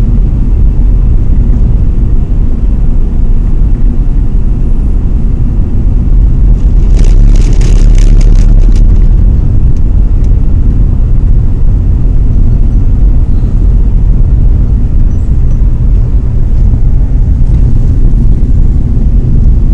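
Road noise inside a moving vehicle's cabin: a loud, steady low rumble of tyres and engine on an icy highway. A brief burst of crackling comes about seven to nine seconds in.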